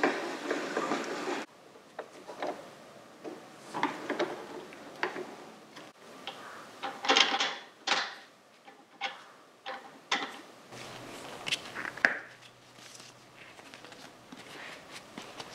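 Metal parts and tools handled at a bench vise: irregular clinks, taps and short scrapes, loudest about seven seconds in.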